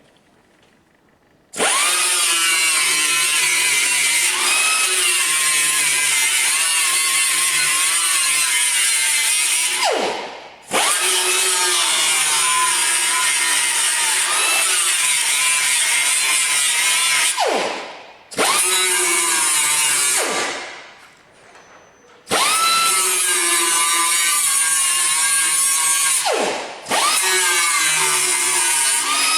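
Angle grinder with a 36-grit disc grinding into the welds of a fabricated car sill. It starts about a second and a half in and runs in five bursts, each spinning up with a rising whine and winding down with a falling one when released.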